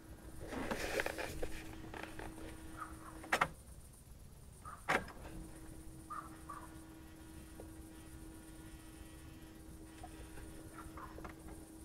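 Two sharp clicks about a second and a half apart as the ignition of a 1993 Mazda 323F is switched off and back on for an ECU error-code test. A faint steady electrical hum stops at the first click and comes back just after the second. Handling rustle comes near the start.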